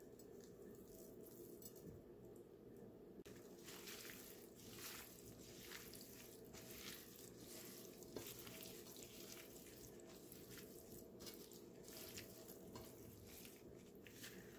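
Faint, irregular squishing and rustling of a disposable plastic-gloved hand tossing shredded chicken on a plate, starting about three seconds in, over a low steady background hum.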